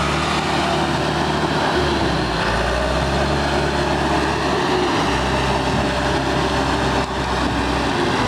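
John Deere 450H crawler dozer's diesel engine running steadily, its low engine note shifting up and down several times as it works.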